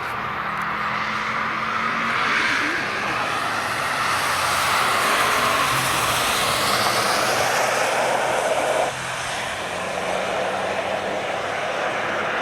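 A car passing on a wet track: engine note gliding up and down over a wide hiss of tyres on wet tarmac, loudest in the middle, then dropping suddenly about nine seconds in.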